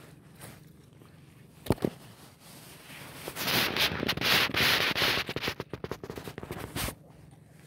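A hooked needlefish thrashing against the camera and the angler's hands. Two sharp knocks come first, then about four seconds of loud, rapid crackling and scraping that stops abruptly.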